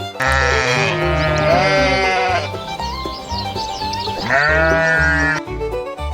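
Sheep bleating, two long bleats, the second shorter, over background music with a steady pulsing beat.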